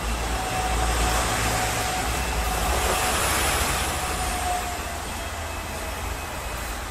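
Hong Kong double-decker tram running, heard from inside its cabin: a steady rumble and rattle, with a faint whine that fades out about four and a half seconds in.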